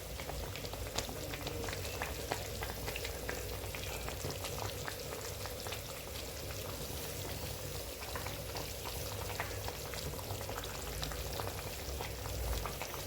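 A thin fish and potato curry bubbling at a boil in the pan, a steady hiss with many small crackling pops.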